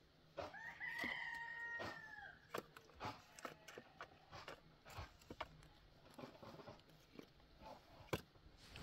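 A rooster crowing once, faintly, about half a second in: one long call, held level and then falling at the end. Scattered sharp clicks and knocks follow.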